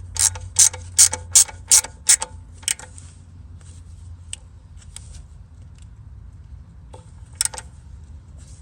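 A ratchet wrench clicking in a quick run of about eight strokes, roughly three a second. A few lighter clicks follow, then one more sharp click near the end.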